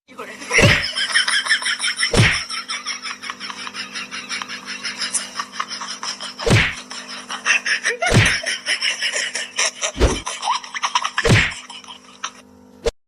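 Six loud sharp smacks at irregular intervals, about every one and a half to two seconds, over a fast patter of small clicks and a faint steady hum.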